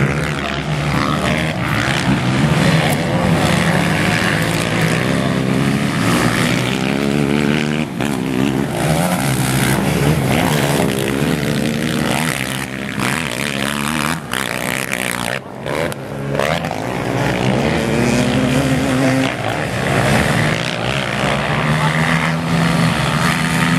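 Racing ATV (quad) engines revving hard on a dirt motocross track, their pitch rising and falling repeatedly with the throttle, several engines at once.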